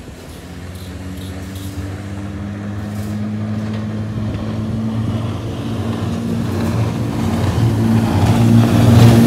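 Speedboat engine running at high speed on a river, its steady note growing louder as the boat comes closer, with rushing spray near the end. This is the boat before repair, when it porpoises ('jumps') because of a hooked hull bottom.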